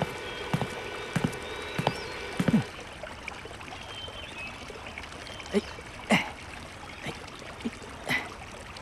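Steady trickling water, with a run of light knocks about every half second over the first two and a half seconds and a few separate sharp pops later on.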